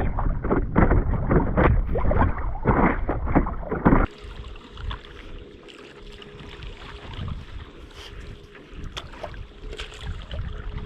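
Strong wind buffeting the microphone for about four seconds, then an abrupt change to a much quieter outdoor scene with a faint steady hum and a few light ticks.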